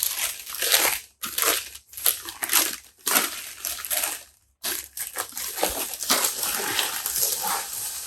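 Newspaper wrapping being pulled open and crumpled by hand to unwrap a camera, in irregular rustling bursts with short pauses.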